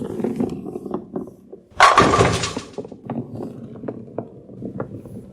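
Bowling sound effect: a ball rolling with a low rumble, then a loud crash about two seconds in as it strikes the pins, followed by the pins clattering and settling.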